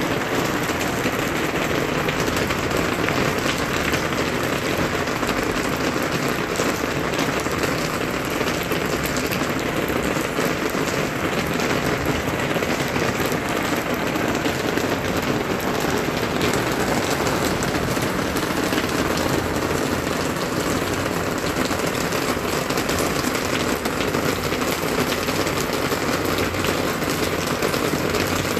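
Steady heavy rain, a dense even patter of drops hitting surfaces.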